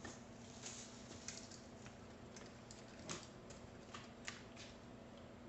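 Faint, light clicks and taps of small bike parts and tools being handled on a workbench, about a dozen at irregular intervals, over a steady low hum.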